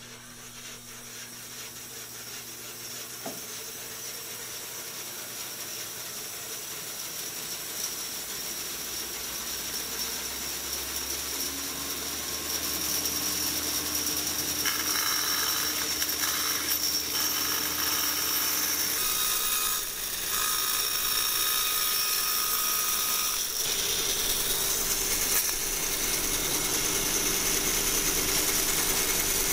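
Old 36-inch Oliver bandsaw running, getting steadily louder over the first ten seconds or so as it comes up to speed, then running steadily.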